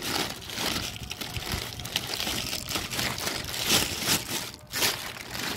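Thin plastic shopping bag rustling and crinkling as hands pull it open, an uneven crackle of small crumples.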